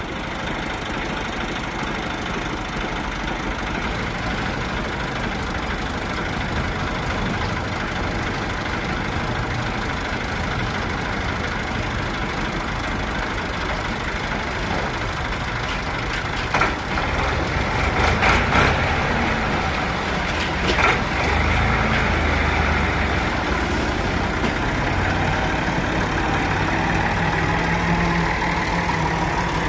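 Massey Ferguson 260 tractor's three-cylinder diesel engine running steadily as the tractor pulls a trailer. It gets louder as the tractor comes close, with a few short, sharp knocks about two-thirds of the way through.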